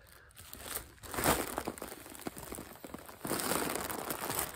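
Foil helium balloon crinkling and rustling as it is squeezed and handled at the mouth, in a short patch about a second in and again, longer, from about three seconds in.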